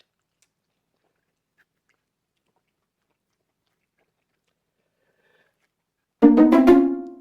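Faint chewing clicks, then about six seconds in a single loud, sudden sneeze that starts sharply and trails off in a voiced tail.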